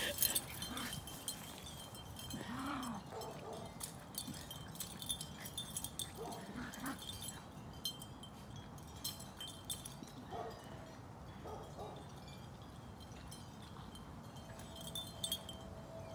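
Two small dogs playing, mostly quiet: a few soft, brief vocal sounds scattered through, with light metallic tinkling and clicking.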